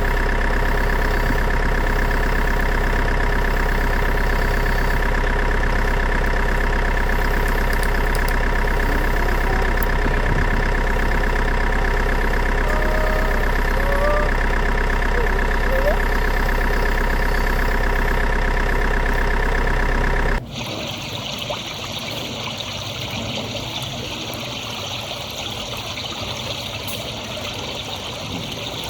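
Steady idling engine drone made of many held tones, which cuts off abruptly about two-thirds of the way in and gives way to the steady hiss of running water.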